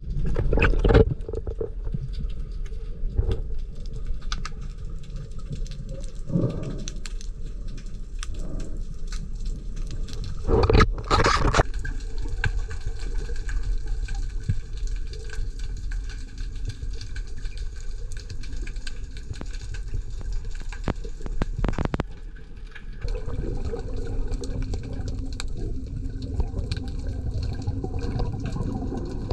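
Water noise heard underwater: a steady low rumble and hiss with fine crackling throughout, and a louder rushing swell about eleven seconds in.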